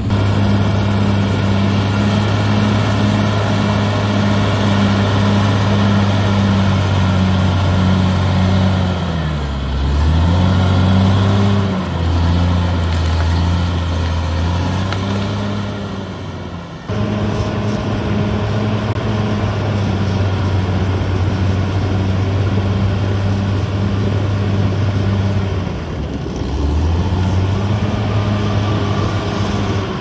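CAT D6R XL bulldozer's diesel engine running hard as the dozer pushes soil with its blade. The engine note dips and recovers twice, about a third of the way in and near the end.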